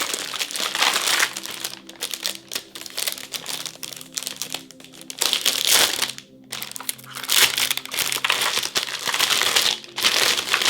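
Packaging crinkling and rustling as a new mechanical keyboard is unwrapped. It comes in irregular bursts with short pauses, one about halfway through.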